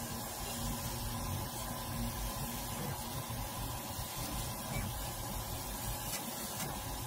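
Laser cutter running as it cuts a wooden sheet: a steady hiss with a faint low hum underneath.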